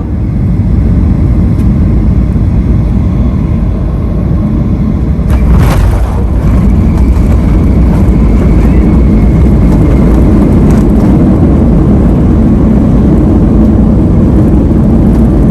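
Loud, steady low rumble heard from inside a moving vehicle, with a single brief knock about five and a half seconds in and a faint steady whine for a few seconds after it.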